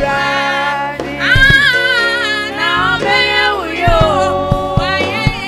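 A gospel song: one singer holding long notes and sliding between them over a steady low accompaniment.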